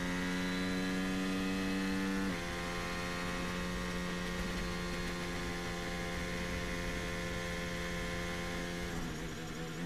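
Formula 1 car's turbocharged V6 engine holding steady low revs, a smooth, even hum rich in overtones that drops a little in pitch about two seconds in.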